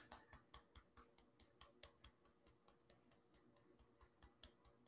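Faint fingertip taps on the outer edge of the hand at the karate chop point in EFT tapping, about four or five taps a second, thinning to a few scattered soft taps after the first second.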